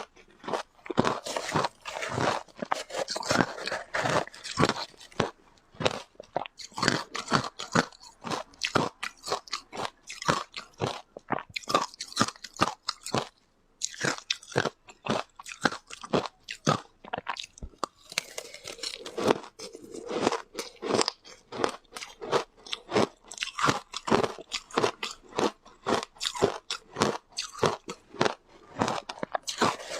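Close-miked crunching and chewing of shaved ice, many rapid crunches in a row with a brief pause about halfway through.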